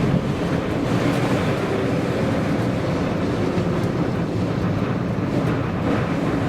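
Strong wind buffeting the microphone: a loud, steady rumbling wind noise with no distinct events.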